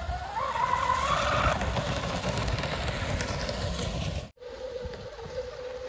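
Twin brushless electric motors of a Pro Boat Miss Geico 36-inch RC catamaran whining at speed across the water, the pitch climbing as the throttle opens in the first second or so, over low wind buffeting on the microphone. The sound cuts out abruptly about four seconds in and returns at a lower, steady pitch.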